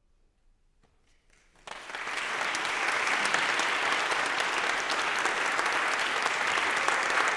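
Near silence, then an audience starts applauding suddenly about a second and a half in and keeps clapping steadily.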